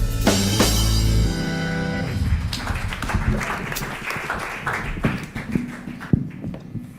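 Accompanying band with drum kit and guitar ends on a held final chord that stops a little over a second in, followed by a patter of applause that gradually fades out.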